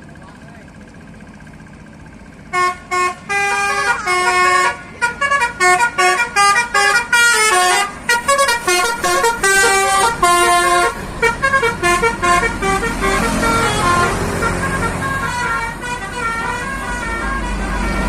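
Basuri 'telolet' multi-tone bus horn playing a quick tune of stepped notes, starting about two and a half seconds in. In the second half a low bus engine rumble rises as the horn tune goes on more faintly and fades out.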